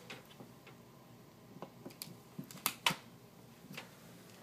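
A few sharp clicks and light knocks from a power plug and cord being handled at a wall outlet, the loudest two close together about two and a half seconds in.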